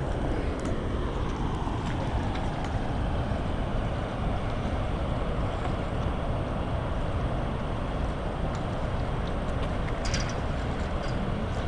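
Steady rushing of the tailwater below a dam, with some wind noise on the microphone. A few short, sharp ticks come about ten seconds in.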